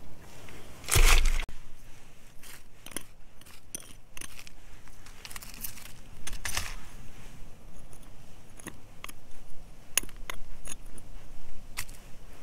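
Small flat steel digging bar scraping and clinking against stones and gravel in dry soil, in scattered short strikes, with a louder crunch about a second in.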